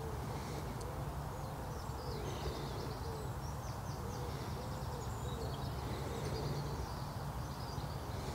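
Birds calling: a low, soft call is repeated in runs about two or three times a second, with higher twittering from small birds above it, over a steady low rumble.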